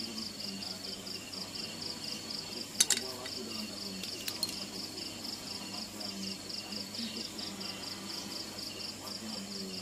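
Insects chirping in a rapid, evenly pulsed high trill that runs on without a break. A single sharp click about three seconds in is the loudest sound, with two lighter clicks about a second later.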